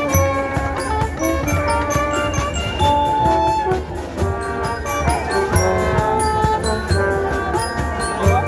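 Music: a melody of held notes over a steady drum beat.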